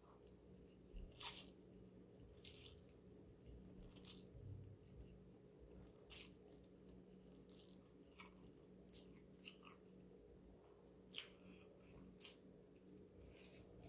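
Close-up eating sounds: short slurps of instant noodles and wet chewing noises, coming every second or two, the sharpest about four seconds in. A faint steady hum sits underneath.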